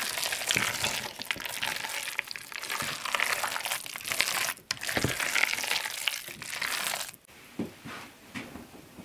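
A wooden spoon stirring and scraping a thick, sticky mixture of cooked rice and chopped apple for a rice and apple pudding in a metal pot: wet squelching and scraping in two stretches, with a brief pause about four and a half seconds in. The stirring stops about seven seconds in.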